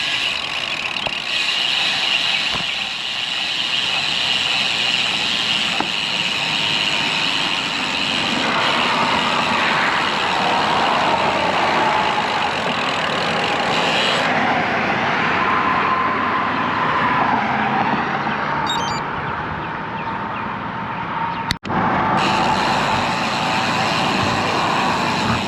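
Steady wind and road noise on a bicycle-mounted action camera, with motor traffic passing on the highway. Midway through, a tyre whine rises and falls as vehicles go by.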